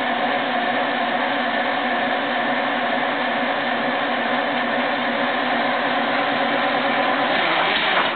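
Detroit Diesel 8V-71 two-stroke V8 running steadily on a cold start after sitting unused for several months, white smoke pouring from its stacks. The sound drops away suddenly at the very end.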